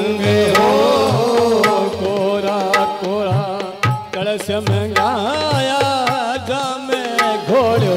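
Instrumental bhajan music: harmonium with a hand drum playing a steady rhythm and a lead melody that bends in pitch.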